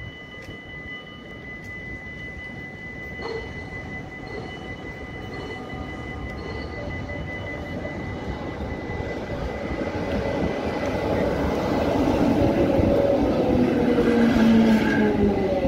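GVB articulated tram approaching and passing close by, its wheels rumbling on the rails and growing steadily louder, with a motor whine whose tones fall in pitch in the last few seconds. A faint steady high tone fades out about halfway through.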